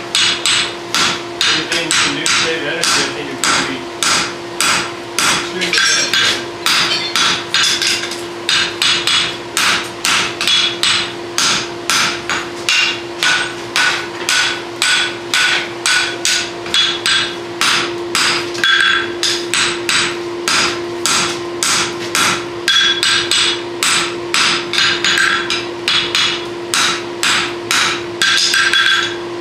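Farrier's hand hammer and a striker's sledge beating red-hot steel on an anvil while forging a draft horseshoe with caulks: steady blows, about two a second, each with a short metallic ring.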